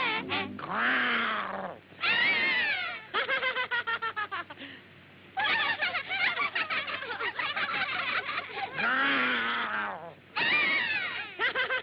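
Cartoon character voices: long wavering cries and quick stuttering, bleat-like and laughing sounds from the lambs and the wolf, with no music under them.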